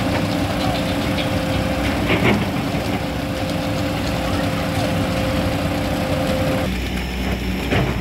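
Concrete mixer truck's diesel engine running steadily as it drives the turning drum to discharge concrete down the chute. A couple of brief knocks come through about two seconds in and near the end.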